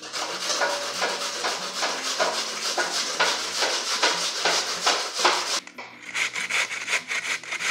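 Peeled cassava root rasped by hand on a metal box grater into a stainless steel bowl, in repeated grating strokes about two to three a second. The root is firm and crunchy, so each stroke gives a dry scraping rasp.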